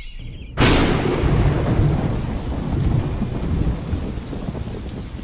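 A sudden thunderclap about half a second in, followed by rolling thunder rumble over steady heavy rain.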